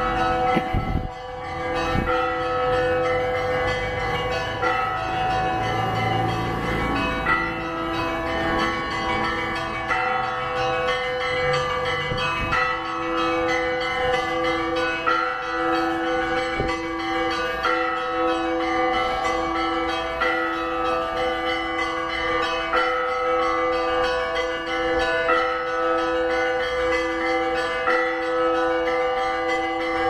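Church bells of a Russian Orthodox church ringing: several bells of different pitches struck in a repeating rhythmic pattern. A lower bell joins in a steady beat about seven seconds in.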